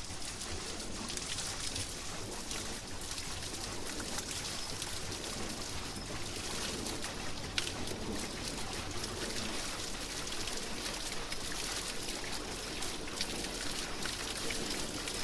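Water pouring and splashing steadily over a wooden mill water wheel, with one brief click a little past halfway.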